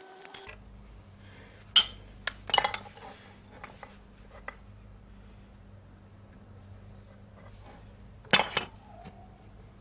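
Sharp metallic clinks of brass plumbing fittings and a pipe wrench knocking together while a new ball valve is fitted onto a taped pipe nipple. A short burst of clinks comes about two seconds in and another a little after eight seconds.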